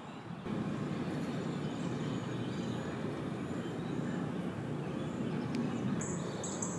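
A steady low rumbling noise that comes up about half a second in and holds.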